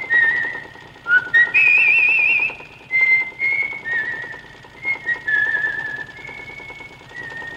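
A man whistling a tune: clear held notes with a quick warbling vibrato, stepping up and down in pitch.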